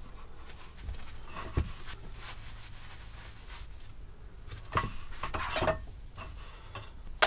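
Household handling noise: fabric rustling and a few light knocks and clinks as a window curtain is taken down and folded and items are handled on a small table. The clearest sounds are a knock about a second and a half in, a burst of rustling and clatter about five seconds in, and a sharp click near the end.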